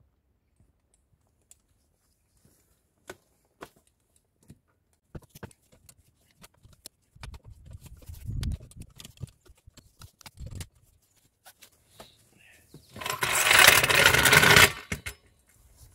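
Scattered clicks and knocks from a steel hydraulic floor jack and a wooden block being handled beside a car wheel, with a few dull thumps. Near the end, a loud rattling scrape lasting about a second and a half as the floor jack is rolled under the car across pebbled paving.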